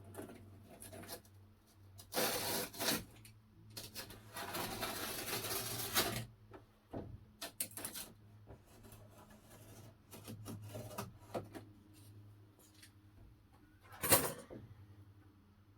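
Irregular scraping and rubbing with scattered knocks as a glass pane is worked loose from its mastic bedding in a wooden shed window frame, with one longer scrape and a single louder scrape near the end.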